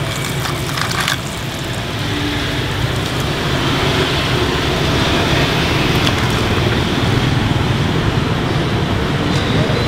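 Steady rumble of road traffic, cars and motorbikes going by, growing a little louder in the second half. A few light clicks come in the first second or so.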